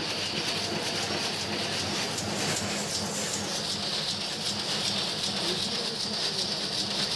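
Rapier loom with an electronic jacquard running at speed, giving a steady, fast mechanical clatter.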